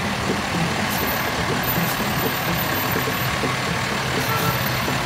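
Utility bucket truck's engine running steadily as the truck drives slowly past.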